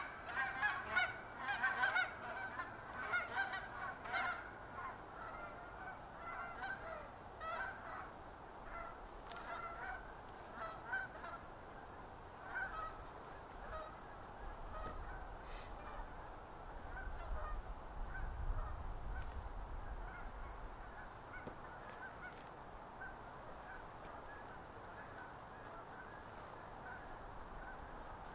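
A flock of geese honking, with many overlapping calls at first that thin out and fade away. A low rumble rises about two-thirds of the way through.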